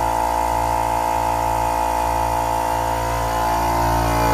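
Kobalt portable air compressor running out in the open, without its silencer box: a steady, pretty loud running noise with a strong whine over a low hum.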